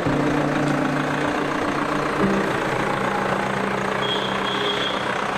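Road traffic noise of heavy vehicles and engines running steadily, with a low hum whose pitch shifts about two seconds in and a short high beeping near the end.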